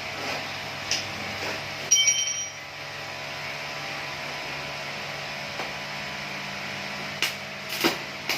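Steel struck once about two seconds in, ringing briefly at a few clear pitches, with a few sharp metallic taps near the end, over a steady workshop hiss and hum.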